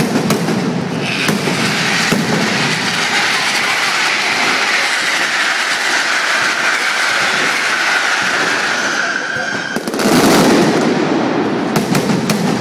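Mascletà firecrackers going off in a dense, continuous rattle over a high hiss that sinks slowly in pitch. About ten seconds in it gives way suddenly to a louder burst of deeper bangs, followed by a few sharp single bangs near the end.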